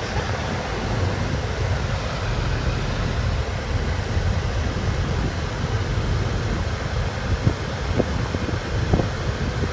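Steady low rumble of vehicle noise with wind buffeting the microphone, and a few faint short clicks near the end.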